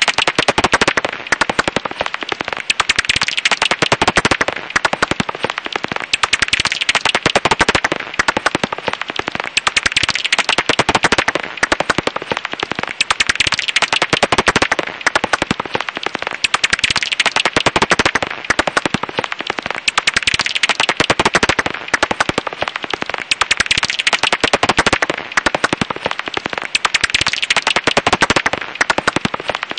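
Japanese house bat (Pipistrellus abramus) echolocation calls made audible: a dense, rapid crackle of clicks that swells and fades every three to four seconds.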